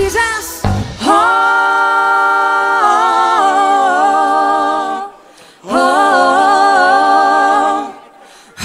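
Voices singing a cappella with no instruments: two long phrases of held, slightly wavering notes, the first starting about a second in and the second starting at about six seconds and ending near the end.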